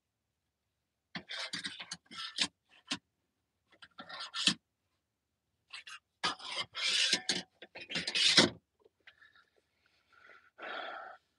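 A man laughing, breathy and mostly unvoiced, in a run of short bursts over several seconds, with a last short burst near the end.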